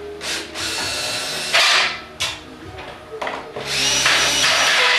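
Power drill running in a series of bursts with short pauses between them; the last and longest run lasts over a second, with a steady high whine.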